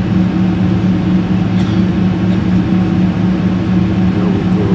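Steady drone of a jet airliner's engines and airflow heard inside the cabin on approach, a constant low hum.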